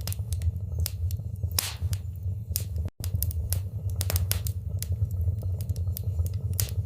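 Wood fire burning in a fireplace: irregular sharp crackles and pops over a steady low rumble. The sound cuts out for an instant about three seconds in.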